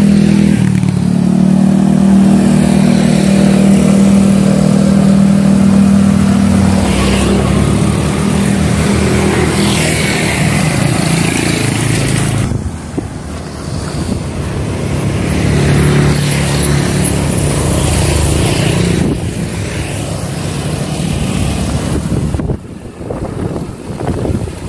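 Motor vehicle engines running on the road: a steady engine hum for about the first half, then another engine a little past the middle.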